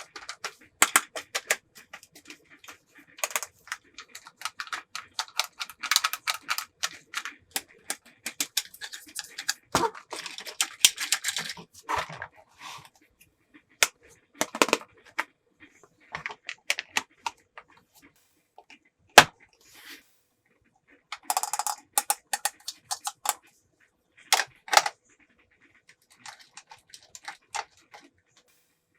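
Small plastic toy pieces being handled: irregular clicks, taps and clatters in busy bursts with short pauses, and one sharp knock about two-thirds of the way through.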